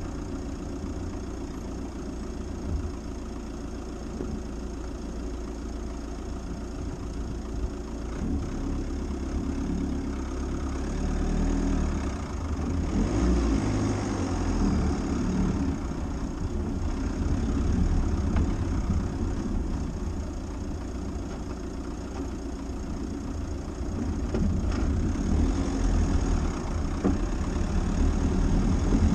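Dacia Duster driving slowly off-road: a steady low engine and tyre rumble that swells louder about halfway through and again near the end, with a few short knocks.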